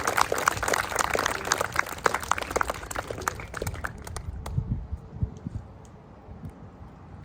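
Audience applauding, the clapping thinning out and dying away about four seconds in, leaving only a faint low rumble.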